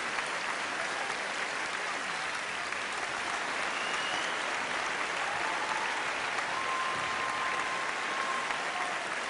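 Theatre audience applauding steadily: dense, even clapping from a large crowd.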